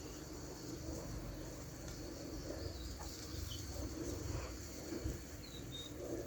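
Faint, soft taps and clicks of small plastic toy pieces being handled, over a steady low hum.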